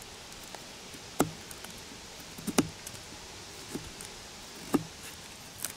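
Folding knife carving into a green branch, removing wood toward a stop cut: five short, sharp clicks roughly a second apart as the blade bites and chips break away.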